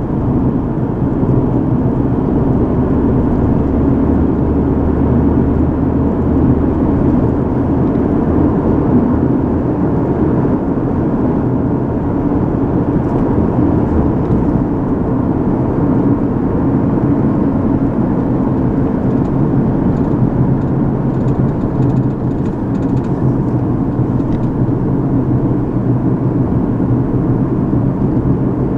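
Steady low road and engine noise of a car driving, heard from inside the cabin.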